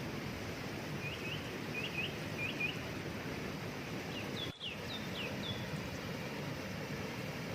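Steady rushing of a waterfall, with a small bird chirping over it: quick rising notes in pairs during the first few seconds, then higher, falling chirps around the middle. The sound drops out for an instant about halfway.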